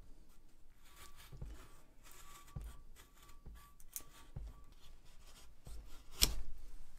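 Faint scratching and rubbing of a strip of sandpaper worked between the steel prongs of a rusty Joseph Dixon #6 pricking iron held in a vise, taking off surface rust. A few soft knocks, and one sharp tap about six seconds in.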